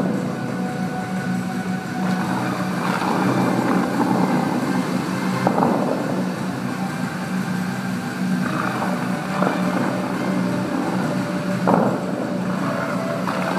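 Show music of the Dubai Fountain, sustained held tones, over the steady rush of its water jets, with a few short surges as jets fire.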